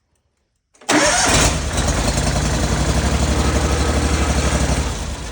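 Honda GX630 V-twin engine on a John Deere 318 garden tractor starting up about a second in and running with a steady, even beat, easing off near the end. It is run briefly to circulate freshly added oil before the level is rechecked.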